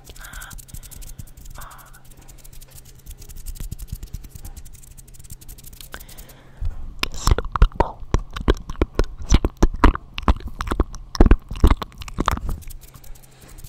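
Fast ASMR mouth sounds made right at a microphone, with hands cupped around it. Soft quick crackling at first, then from about six and a half seconds a rapid run of loud, sharp clicks and pops.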